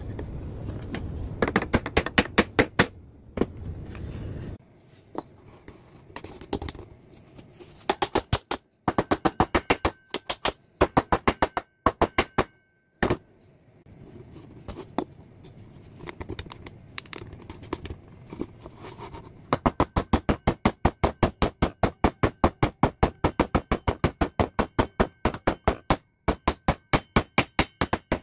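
Runs of sharp knocks from tool strikes on hardwood, several a second, some with a faint metallic ring, in the most even and steady run during the last third. A low rumble sits under the first few knocks.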